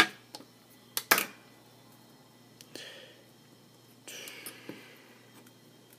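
Sharp clicks of the iPhone 5's front-assembly flex-cable connectors being pressed onto their sockets on the logic board: one click at the start and two close together about a second in, followed by faint rustling and small ticks from handling the phone.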